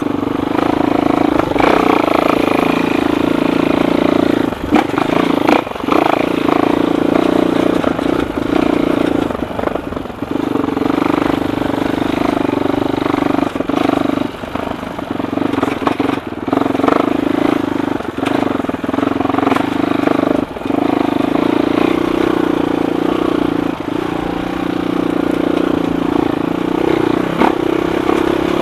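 Suzuki LTR 450 quad's single-cylinder four-stroke engine running at a steady, moderate pace, easing off briefly every few seconds before picking up again, with scattered knocks and rattles from the machine over rough ground.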